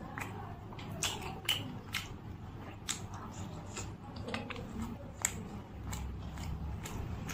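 Close-miked chewing of a steamed momo dipped in red chutney: mouth sounds with irregular sharp clicks and smacks, several a second.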